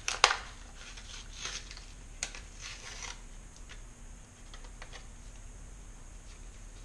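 Rubber vacuum caps and small parts being handled while one is tried on a port: a sharp click about a quarter second in, then several lighter clicks and rustles over the next three seconds, fading to faint ticks.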